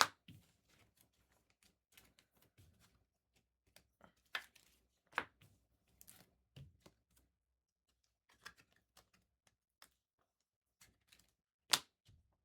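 Trading-card packs and cards being handled and opened: scattered light clicks, taps and rustles, with one sharper click near the end.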